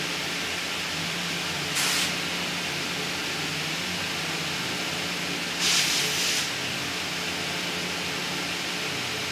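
Steady hiss of background noise, with two short, louder rushes of hissing noise about two seconds and about six seconds in.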